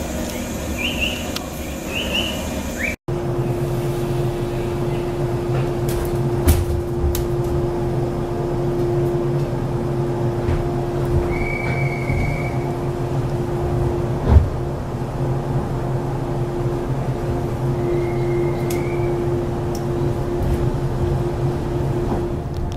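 Electric train running, heard from inside a car: a steady drone with a held hum, a few brief squeaks, and a single sharp knock about fourteen seconds in.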